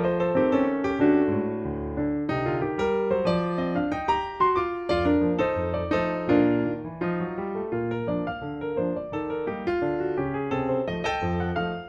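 Background piano music, a steady flow of notes with chords in the lower register.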